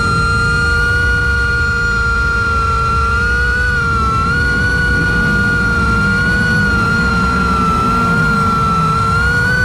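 FPV quadcopter's motors and propellers whining steadily, the pitch wavering slightly with throttle, over a low rumble.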